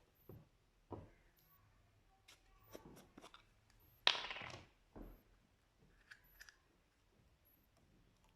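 Slime being handled: scattered faint clicks and sticky pops, with one louder, longer squish about four seconds in that fades over half a second.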